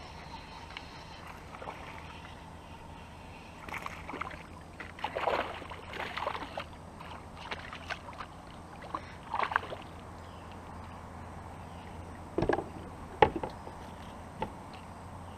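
A kayak paddle splashing in the water in several strokes. Near the end come a few sharp knocks on the plastic kayak hull while a small bass is handled aboard.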